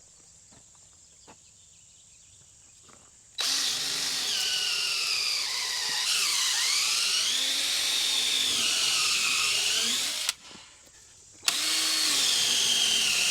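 Power drill running in two long runs, the first starting about three seconds in and the second after a one-second pause, its whine rising and dipping as the bit loads up, drilling into the wooden post to hang a gate.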